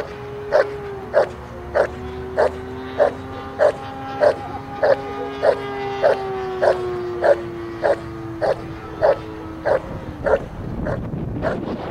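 German Shepherd Dog barking in a steady rhythm, about three barks every two seconds, in a Schutzhund guard-and-bark, stopping about ten seconds in. Under the barks is a steady hum that slides slowly lower in pitch.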